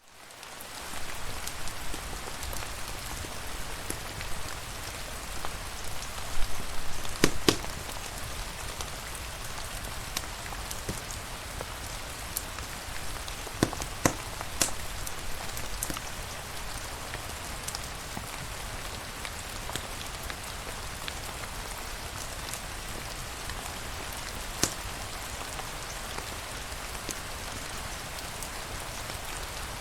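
Steady rain falling on a surface, an even hiss that fades in over the first second, with a few sharp clicks scattered through it.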